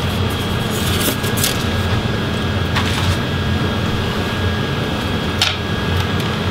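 Steady low background hum with a faint high steady tone, broken by a few light clicks.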